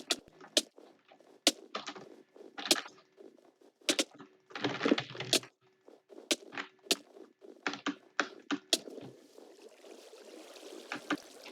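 Typing on a computer keyboard: irregular key clicks, some single and some in quick runs, with short pauses between them.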